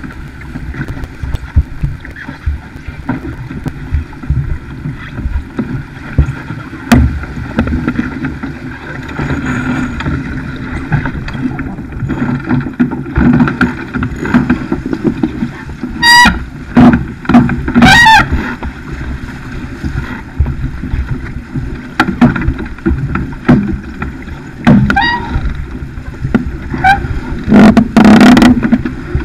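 Wind buffeting the microphone and water rushing along the hull of a Farr 280 racing sailboat heeled under sail. A few short, louder sounds break through around the middle and near the end.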